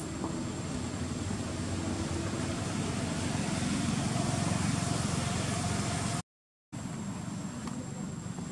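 Steady low rumble of a distant motor vehicle engine, swelling a little in the middle, broken by about half a second of dead silence just after six seconds in.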